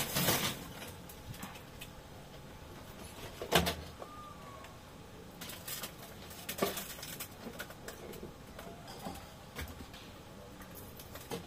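A thin plastic cup and the bin it rests on crackle and knock as a macaque handles the cup and drinks from it. A loud rustling scuffle comes at the start, a heavier knock about three and a half seconds in, and smaller clicks scattered through.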